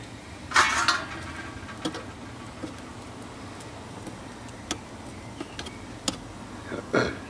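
Metal barbecue tongs scraping and clanking against the wire grate of a charcoal grill, loudest about half a second in and again near the end, with a few sharp clicks between, over a steady low sizzle of meat cooking on the coals.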